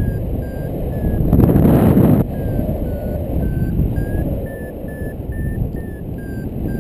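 Paragliding variometer beeping its climb tone, about two short beeps a second, the pitch rising slightly in the middle and dropping again near the end: the glider is climbing in lift. Steady wind rushing over the microphone, with a louder gust about a second and a half in.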